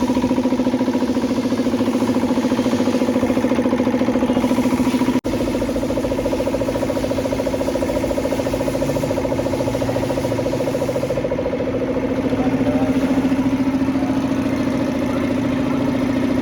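A machine motor running with a steady, even hum, briefly cut off about five seconds in.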